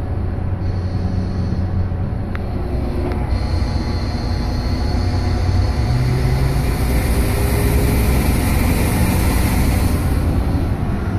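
2011 Ford F-250 pickup under way, a steady low drive rumble with a high thin whistle that comes in about half a second in and grows stronger a few seconds later, joined midway by a higher hiss. The whistle appears on throttle and the owner cannot place it: it doesn't sound like a normal turbo, and he suspects a heat shield or a bearing.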